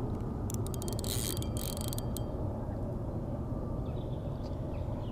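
Fishing reel ratcheting in quick clicks, about half a second to two seconds in, as a hooked carp is played on a float rod, over a steady low rumble.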